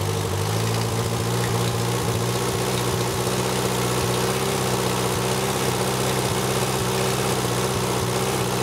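1945 Waukesha ICK auxiliary power unit engine running at a low, steady speed while its throttle linkage is worked by hand. The note rises only slightly about half a second in and then holds. The engine won't speed up because the governor won't kick in.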